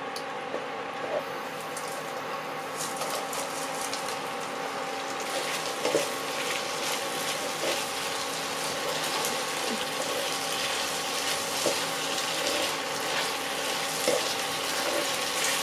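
Sauce and vegetables sizzling in a non-stick frying pan as a spatula stirs fried baby corn through them, with a few knocks of the spatula against the pan. The crackling grows busier a few seconds in.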